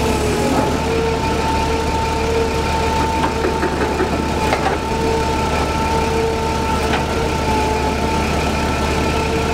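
Clark forklift's engine running steadily, with a steady whine over a low hum. A few light knocks come about halfway through.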